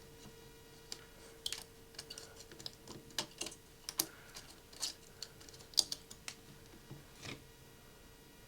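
Scattered light clicks and taps of small tools and metal parts being handled inside an iPhone 6 Plus, with a faint steady hum beneath.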